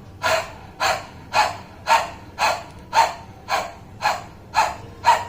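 Forceful breaths out through a wide-open mouth with the tongue stuck out, the lion's breath of simhasana. Ten short, rhythmic huffs, about two a second.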